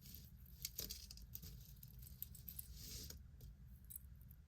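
Faint scattered clicks and light clinks of small metal costume-jewelry pieces, earrings, being handled and worked loose.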